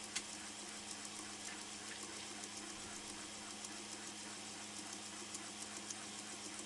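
Laser engraver running while it etches a glass turning on a rotary attachment: a steady machine hum with a stream of faint ticks, and one sharper click shortly after the start.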